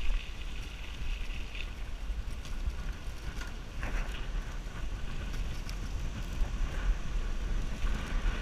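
Wind rumbling on a GoPro's microphone while cycling, with scattered clicks and rattles from the bicycle riding over the road.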